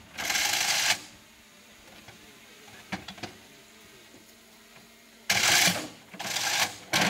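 Metallic clatter at the breech of a 2A36 Giatsint-B 152 mm towed gun as its crew loads a round. There is a loud burst lasting under a second at the start, a few light clicks about three seconds in, then three more bursts in quick succession near the end.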